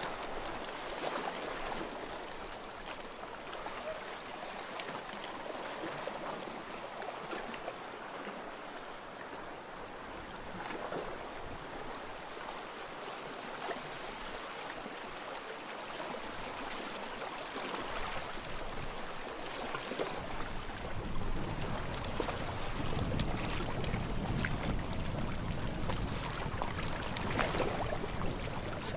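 Small waves lapping and washing at the water's edge, a steady wash with a few gentle swells. From about two-thirds of the way in, wind rumbles on the microphone.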